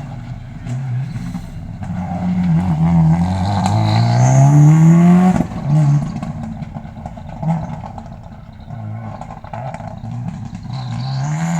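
Rally car engine accelerating hard, its pitch climbing steadily to the loudest point about five seconds in, then dropping suddenly. Lower, uneven engine sound follows, and near the end the pitch starts to climb again.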